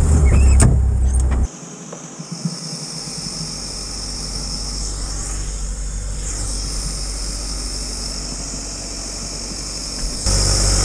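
Off-road buggy's engine running, loud at first, then dropping abruptly about a second and a half in to a quieter steady idle with a steady high hiss over it. It grows louder again near the end.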